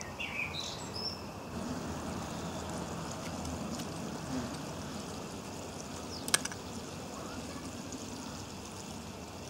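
Steady outdoor background noise with a few short bird chirps in the first second, and one sharp click a little past six seconds in.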